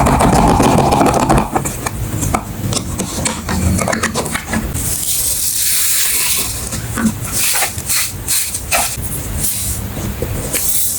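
Paper and plastic packaging being handled, with crinkling, rustling and sharp crackles, and several longer rushing stretches of rustle.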